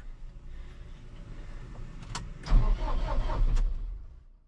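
A vehicle engine cranking and catching about two and a half seconds in, after a sharp click, then running until the sound fades out.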